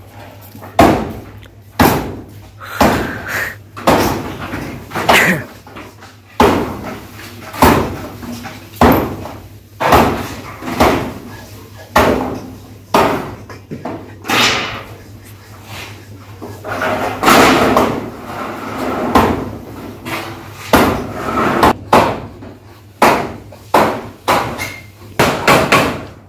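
Hammer blows on corrugated metal roofing sheets as they are nailed down: a string of sharp metallic bangs, roughly one a second, each with a short ring.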